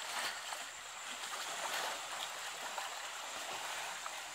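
Water sloshing and splashing in a pool as bathing elephants roll and move about in it, a steady rush of churning water.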